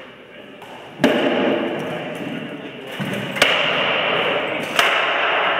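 Rattan sword blows landing in armoured sparring: three sharp cracks, about a second in, at about three and a half seconds, and near the end.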